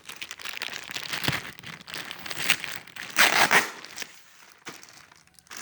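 Packaging being unwrapped by hand: irregular crinkling and rustling, with a louder burst of crinkling about three seconds in, then quieter handling.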